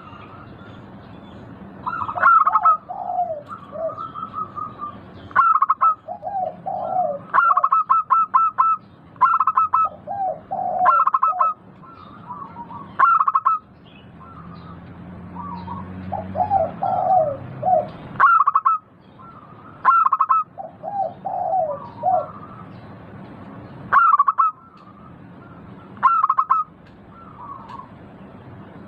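Zebra dove (perkutut) singing its cooing song. It gives short bursts of rapid clipped notes, repeated every few seconds, several of them followed by lower, rolling coos.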